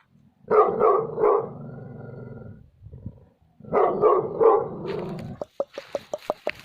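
A dog barking in two bursts of three quick barks, each trailing into a low, drawn-out growl, then a run of short, rapid huffs near the end.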